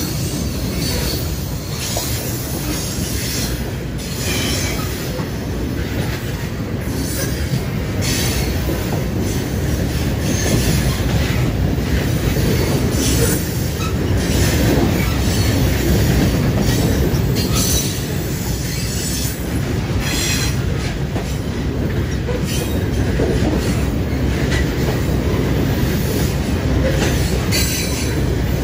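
CSX coal train's cars rolling past close by: a steady rumble of steel wheels on the rails with clicking over the joints and high-pitched wheel squeals that come and go.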